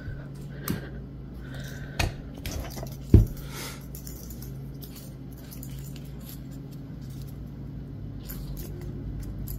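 Clicks and knocks from a key fob hardware press being released and the cork key fob being handled, its metal clamp and split ring clinking. Three sharp knocks come about a second apart, the loudest about three seconds in, over a steady low hum.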